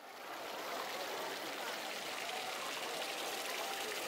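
Water from the Fontana del Pantheon splashing and pouring from its spouts into the stone basin, a steady rushing. It fades in over the first moment.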